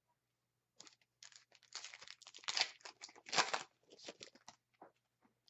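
Hockey trading cards and their pack wrapper being handled: an irregular run of rustling and crinkling that starts about a second in and is loudest around the middle.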